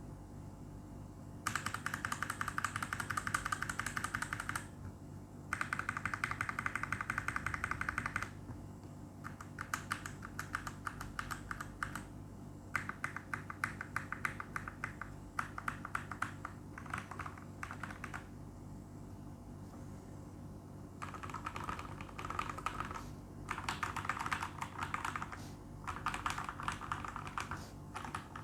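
Typing on a Royal Kludge RK860 mechanical keyboard with lubed RK (Huano) brown tactile switches and a foam-modded case: fast runs of key presses broken by short pauses, with slower, sparser typing in the middle and a lull of a few seconds before a final burst.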